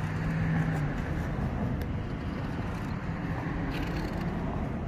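A coin scraping the scratch-off coating off a paper lottery ticket, over a steady low rumble.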